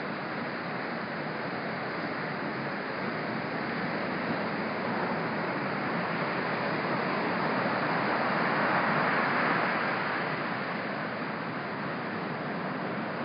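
Ocean surf breaking on the beach: a steady wash of chest-high waves that swells to a louder crash about nine seconds in, then settles back.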